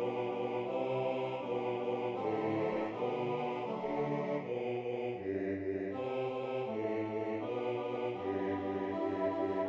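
Notation-software playback of a four-part men's choir score, Tenor 1, Tenor 2, Bass 1 and Bass 2: synthesized choir-like voices sing chords in steady, even note steps. The music moves on through the phrase without a pause.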